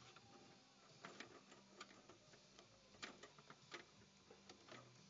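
Faint, irregular small plastic clicks and taps as the latched 24-pin power connector is worked back and forth to free it from a desktop computer's motherboard.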